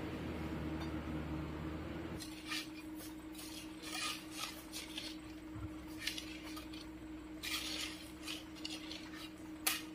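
Dump truck engine running steadily, dropping to a lower, quieter level about two seconds in, with scattered light metallic clinks and clicks and one sharper click near the end.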